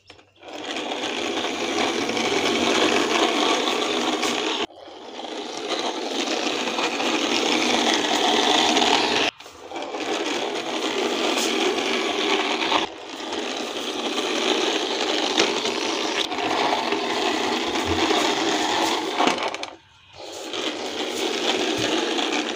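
Plastic wheels of a toy bus rolling along a rough concrete ledge, a steady gritty rolling rattle. It comes in about five pushes of a few seconds each, each one breaking off suddenly.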